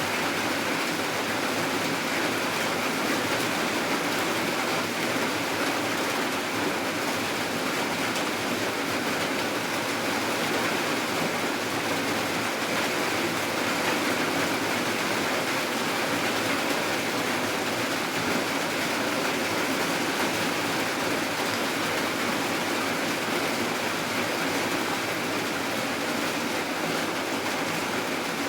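Steady rain falling at night: an even, unbroken hiss with no single drops, thunder or other events standing out.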